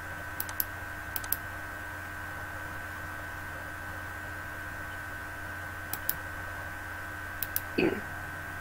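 Sharp clicks in close pairs, four times, made at a computer over a steady electrical hum.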